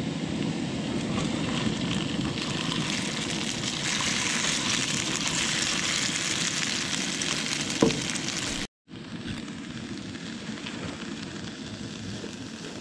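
Diced potatoes frying in oil in a cast iron skillet on a camp stove: a steady sizzle with one sharp knock about two-thirds through. After a brief break, a fried egg and a green chile sizzle more quietly in the skillet.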